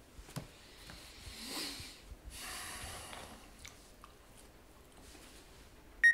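A man sniffs and snorts through his nose twice, each about a second long. A short electronic beep sounds right at the end.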